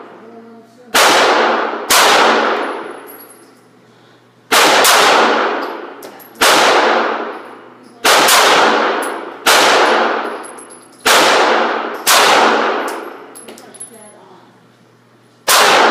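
Nine shots from a 9mm Springfield XD pistol fired at a slow, deliberate pace, one to three and a half seconds apart, each crack followed by a long echo in the indoor range.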